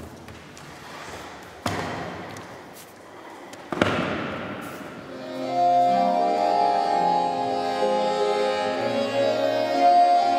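Two sharp knocks, a couple of seconds apart, each ringing out in a reverberant hall. About five seconds in, live music enters: sustained, held chords on an accordion.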